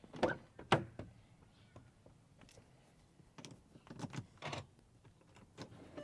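A few faint clicks and knocks: two sharper ones in the first second, then a scattering of softer ones, like small handling sounds inside a car.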